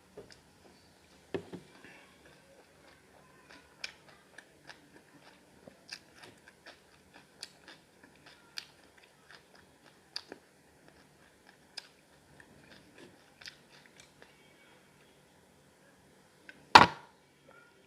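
Close-up mouth sounds of chewing and biting into masala chicken leg pieces: irregular wet smacks and clicks, a few a second. Near the end comes a single loud knock.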